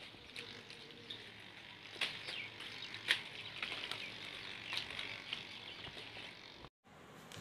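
Faint chirping of small birds with a few light clicks, cutting out briefly near the end.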